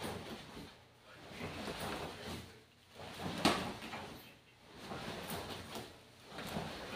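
Bare feet slapping and shuffling on a tiled floor as a person runs back and forth, coming in waves about every second and a half, with one sharp slap about three and a half seconds in.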